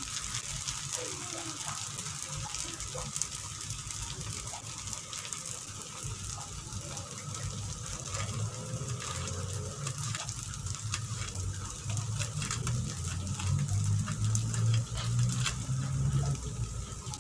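Fried rice vermicelli sizzling in a wok, a steady hiss with fine crackles throughout.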